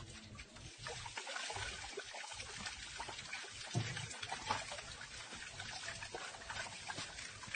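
Water trickling and splashing into a plastic basin from a small turning water wheel of yellow cups, a steady patter of many small splashes and drips.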